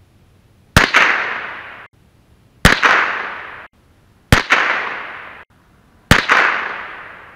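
Four shots from a .22 LR rifle, a little under two seconds apart, each a sharp crack followed by a fading echo lasting about a second.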